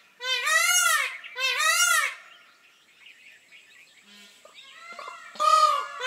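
Indian peacock (male Indian peafowl) giving its loud honking call: two calls close together, a pause of about three seconds, then a third call starting near the end.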